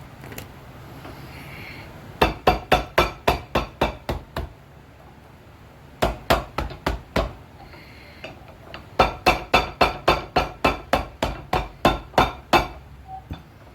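A hammer tapping on a leather shoe sole in quick, even blows, about five a second, in three runs. The first run has about ten blows, the second about six, and the last and longest about sixteen, ending a little before the end.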